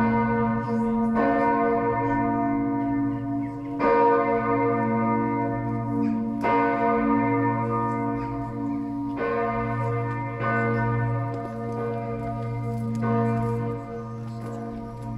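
The Stiftskirche Herrenberg's bells ringing together in a full peal. Many bells overlap in a sustained hum with fresh strokes every few seconds. The ringing grows a little quieter near the end.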